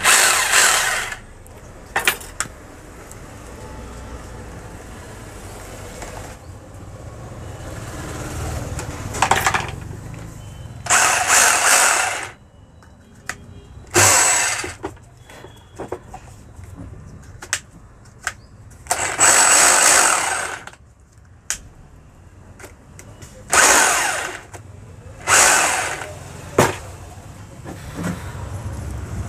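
A power tool motor run in short bursts of a second or two, about six times, with small clicks and handling knocks between.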